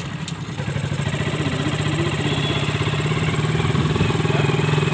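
Motorcycle engine running steadily while riding along, heard from on the bike.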